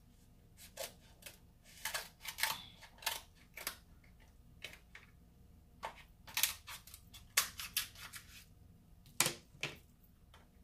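King crab leg shell cracking and snapping apart in an irregular run of sharp crackles and clicks.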